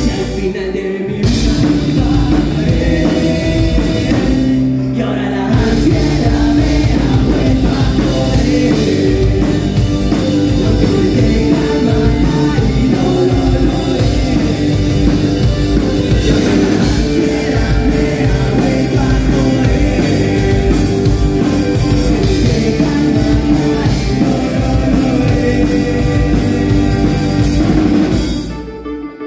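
Live rock band playing loud, with guitar, drums and singing. The music breaks off briefly twice in the first few seconds and dips just before the end.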